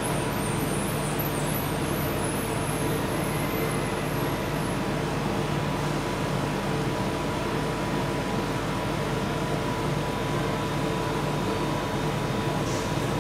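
Steady, unchanging mechanical hum with a low drone and a faint held tone above it, with a few faint high chirps in the first few seconds.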